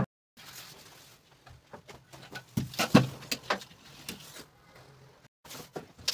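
Scattered knocks and scrapes of hand building work, as wooden planks and heavy building materials are handled and set down. The loudest is a cluster of sharp knocks about three seconds in.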